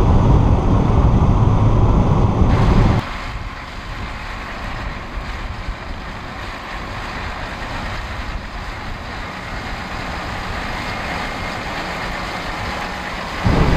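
Valtra tractor working under load with a five-furrow reversible plough: its engine is a heavy low drone inside the cab, then after about three seconds it is heard from out in the field, quieter, with a steady hiss over it. It gets loud again just before the end.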